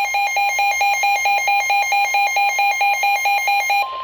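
A weather radio's pulsing alert beeps about four times a second, warning that a severe thunderstorm warning is coming in. Near the end it gives way to the steady 1050 Hz NOAA Weather Radio warning alarm tone, which announces the warning broadcast.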